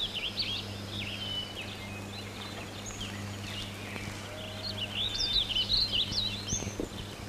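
Small birds chirping in short rising and falling calls, busier about five seconds in, over a steady low hum.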